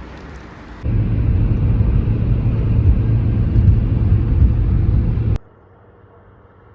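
Loud low rumble of a car driving on a road. It starts abruptly about a second in and cuts off suddenly near the end, leaving a faint low hum.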